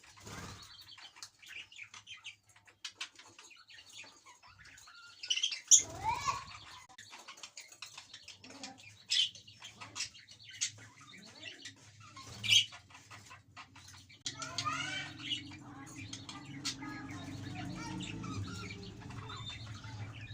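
Pet budgerigars chirping and chattering, with scattered sharp clicks and rustles. A steady low hum comes in about 14 seconds in, under busier chirping.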